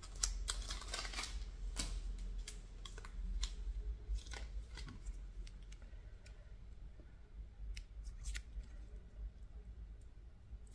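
Photocards and their small wrapper being handled and unwrapped by hand: a light rustle of clicks and crackles, busiest in the first couple of seconds, then sporadic.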